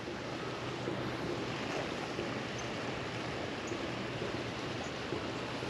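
Steady rush of shallow creek water flowing.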